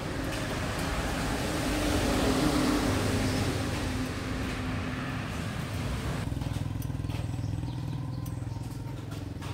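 A motor vehicle engine runs steadily under a loud rush of wind or road noise. The rush drops away about six seconds in, leaving a lower, steady engine hum.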